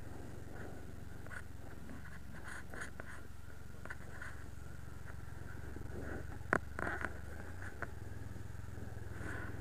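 A vehicle engine idling with a steady low rumble that shifts slightly in pitch about three quarters of the way through, with a few sharp clicks, the loudest about six and a half seconds in.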